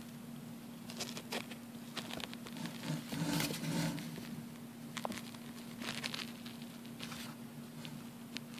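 Dry leaf-litter substrate crackling and rustling, with scattered sharp clicks and a busier stretch of rustling about three to four seconds in, over a steady low hum.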